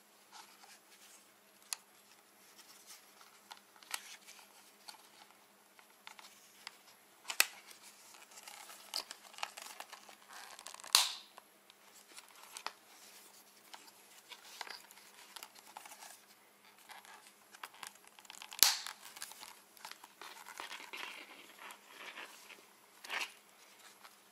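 Plastic handling sounds from 100% Armega motocross goggles while the lens is being changed: faint rustling and creaking of the frame and lens, broken by scattered sharp clicks and a handful of louder snaps.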